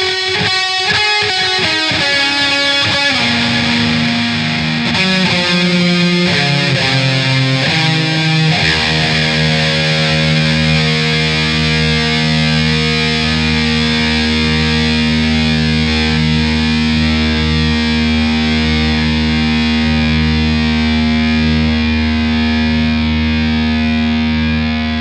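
Instrumental outro of a song on distorted electric guitar with effects. It plays a run of notes stepping downward, then about eight seconds in settles on one chord that is held and sustains to the end.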